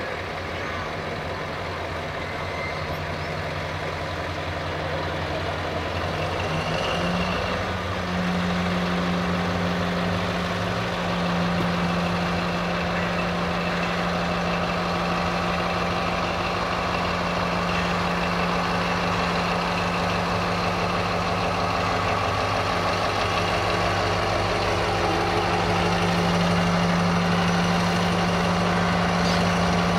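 LDH diesel-hydraulic shunting locomotive's engine running under load as it hauls a rake of tank wagons, its steady note stepping up in pitch and loudness about eight seconds in. The wagons' wheels roll along the track underneath.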